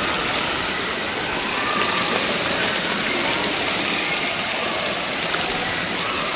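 Steady rush of running and splashing water at an indoor water park pool, with faint voices in the background.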